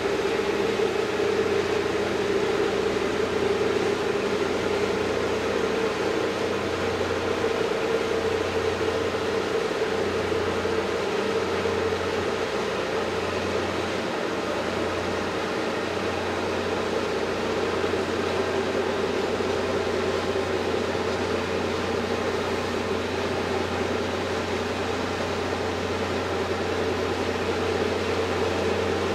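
Steady drone of a cruise ship's engine heard on board while under way, a low hum with a few steady tones over an even noise.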